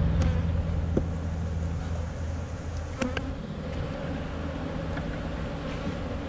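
Honeybees buzzing steadily around an opened nucleus hive as a frame of bees is lifted out, with a couple of brief clicks.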